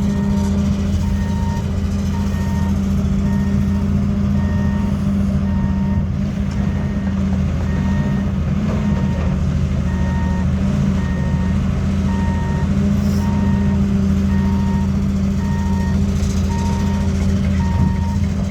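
John Deere 230C LC excavator's diesel engine running steadily, with its warning alarm beeping about once a second, as it does while the machine moves.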